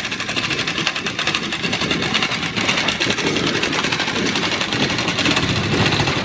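Hand-held Bosch electric metal-working tool running steadily along the seam edge of a 26-gauge Galvalume standing seam panel, with a fast, even mechanical chatter.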